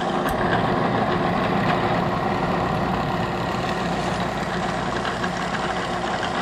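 Super Max milling machine running steadily, a center drill cutting a starting hole into thick steel plate.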